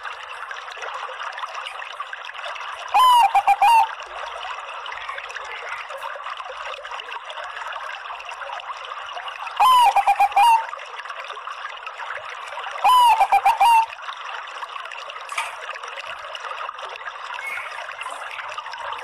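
Bangkok-strain zebra dove (perkutut) cooing three times, a few seconds apart. Each call is a short rising note followed by a quick run of stuttering notes, over a steady hiss.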